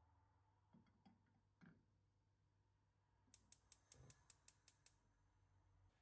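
A pot is set down on a gas hob's pan support with a few light knocks. Then the hob's spark igniter clicks rapidly, about nine times in a second and a half, as the burner is lit, with a low thump among the clicks.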